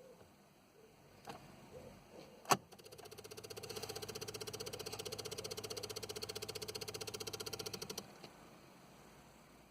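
A VW Polo's ignition is turned with a sharp click, then the starter circuit sounds with a fast, even, rapid rhythm and a steady hum for about five seconds before cutting off suddenly.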